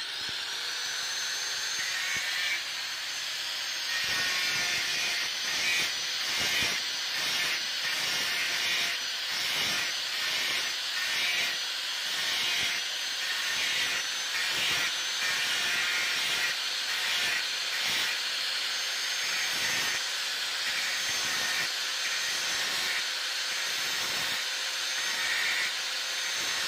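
Electric angle grinder running with a steady high whine, its disc grinding the tip of a metal sprayer nozzle. From about four seconds in the grinding comes in short repeated passes, roughly one or two a second.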